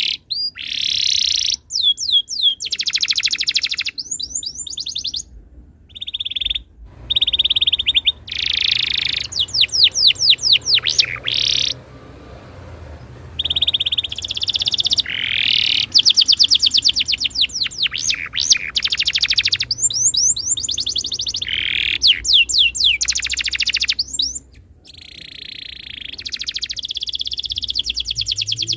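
Domestic canary singing a long song of fast rolling trills and rising whistled sweeps, broken by a few short pauses.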